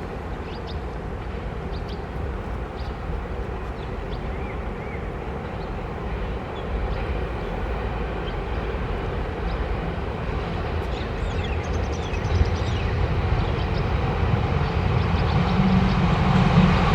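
Taiwan Railway DR2800 diesel multiple unit approaching, its diesel engine and rail noise growing steadily louder, with the engine hum strongest in the last couple of seconds.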